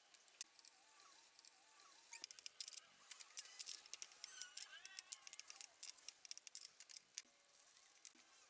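Faint small clicks and light scrapes of hands working engine parts and tools, busiest in the middle, with birds chirping faintly in the background.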